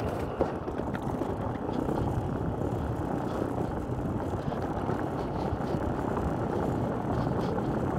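Unpowered mountain cart rolling downhill over a concrete-block path: a steady, rough rattle of the wheels and frame.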